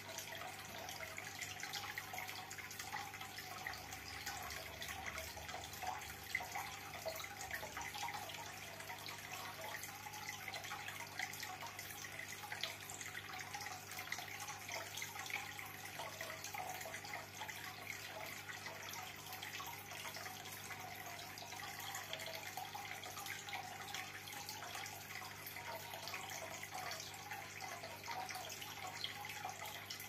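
Water trickling and bubbling steadily, a continuous babble with no swell or pause.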